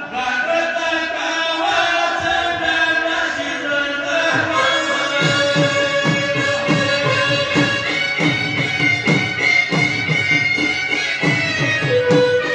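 Live Pashto saaz (traditional folk music): a held melody line, joined about five seconds in by a hand drum playing regular low strokes, about two a second, each bending downward in pitch.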